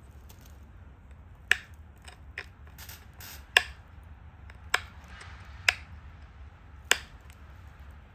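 Flakes snapping off a stone Dalton point under pressure flaking: a series of sharp snaps, about five loud ones a second or so apart with fainter clicks between.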